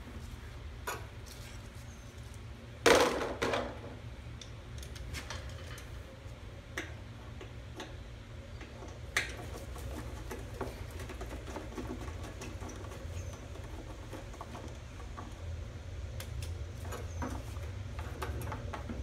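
Small clicks and knocks of hand tools, a bolt and the spacer while unbolting a walk-behind lawnmower's gas tank, with one louder clatter about three seconds in, over a steady low hum.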